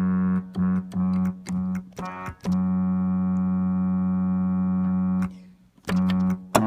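Electronic keyboard on a tuba voice playing one deep steady note, layered an octave apart: a few short blasts, then one long held tone of nearly three seconds. It imitates a cruise ship horn.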